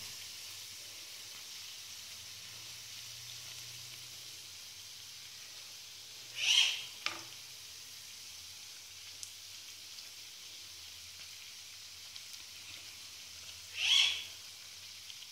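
Donuts deep-frying in hot oil in a metal pan: a steady, quiet sizzle. Twice, about six and a half and fourteen seconds in, a short rising sound stands out above it.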